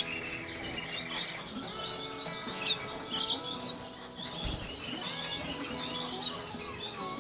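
Canaries chirping and calling, many quick high chirps one after another, over steady background music.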